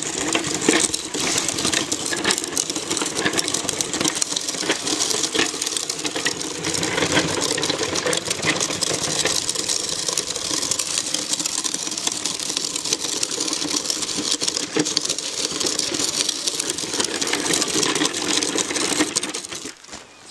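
Radio-controlled truck's motor and drivetrain running steadily, a buzzing whir with many small clicks and rattles, dropping away just before the end.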